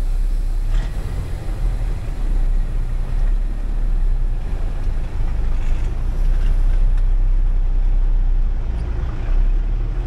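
Ford truck's engine running steadily, heard from inside the cab as a low, even rumble.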